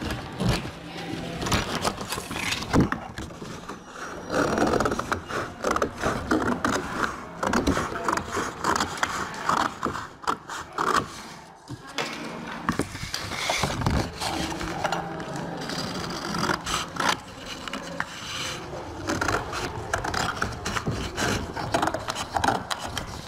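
Scissors snipping through large sheets of printed paper in irregular runs of cuts, with the paper rustling and scraping as the sheets are moved.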